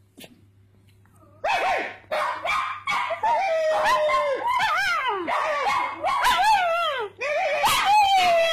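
Pug cross-breed dog yelping and whining in a rapid run of short calls that slide up and down in pitch, a chatty 'talking' bark. It starts about a second and a half in, after a quiet start.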